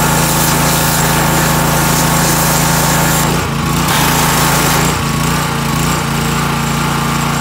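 Gas pressure washer's small engine running steadily, with the hiss of the water jet spraying the mower deck; the engine note wavers and dips briefly about three and a half seconds in and again around five seconds.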